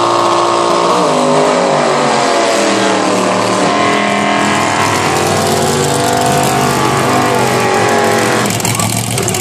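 Drag-race cars' V8 engines revving hard through tyre-spinning burnouts, the engine note sliding up and down. About eight seconds in, the tones fade into a rougher, noisier sound.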